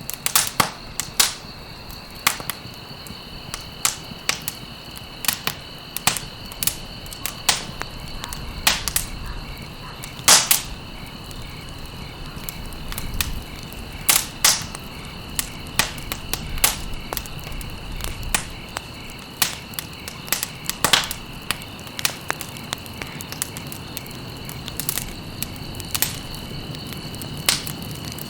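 Wood fire crackling in a fireplace, with sharp, irregular pops every second or so over a low, steady rush of burning. A steady high-pitched tone runs underneath and ends near the end.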